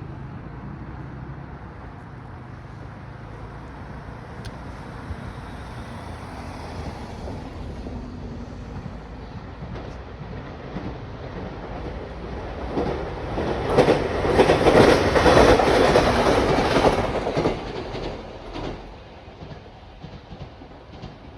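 A train passes. Its noise builds over a few seconds, is loudest for about four seconds around two-thirds of the way in, then fades away.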